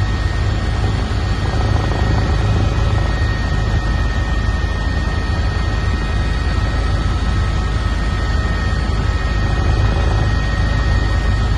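Helicopter in flight, running steadily: a rapid low rotor beat with a steady high turbine whine over it.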